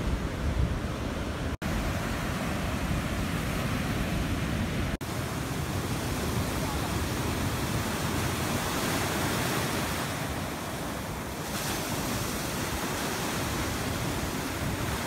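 Ocean surf breaking and washing up a sandy beach, a steady rush of waves. The sound cuts out twice for an instant, in the first few seconds.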